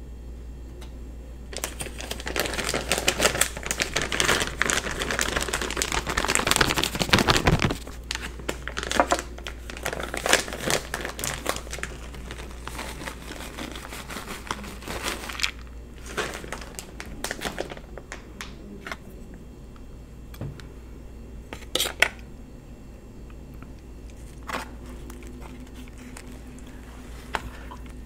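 Plastic bag of shredded cheese crinkling close to the microphone as it is handled and shaken over a plate of fries. The crinkling is dense for several seconds, then breaks into scattered crinkles, with a couple of sharp clicks near the end.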